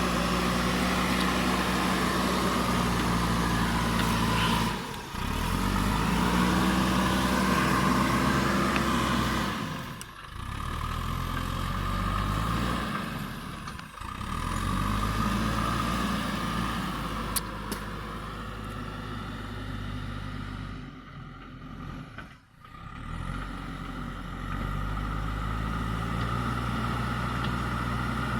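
Diesel engine of a JCB backhoe loader running under working load, its pitch rising and falling as the machine digs, with several brief drops in level.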